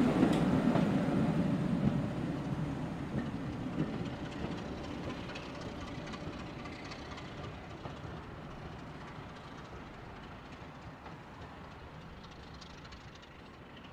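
Rake of passenger coaches rolling past and drawing away, the rumble of wheels on the rails fading steadily as the last coach recedes.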